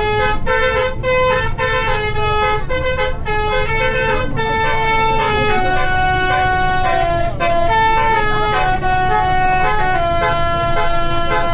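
Bus telolet horn playing a tune of held notes that step up and down in pitch, several horn tones sounding together, over the low rumble of the bus engine.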